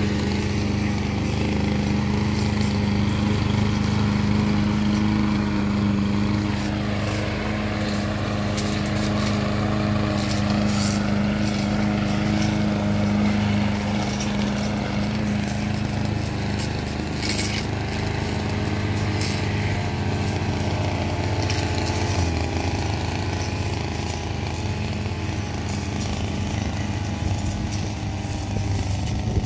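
Walk-behind petrol lawn mower engine running steadily while cutting grass, with a few short clicks partway through.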